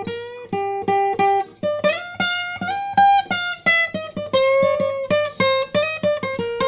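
Instrumental music: a plucked string instrument picks a single-note melody, each note struck sharply and left to ring before the next.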